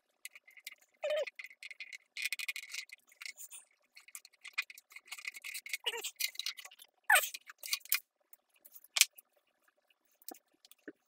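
Handling noise of decal sheets and a hard plastic RC car body while stickers are applied: paper and plastic rustling, light clicks and taps, and a few short squeaks that fall in pitch.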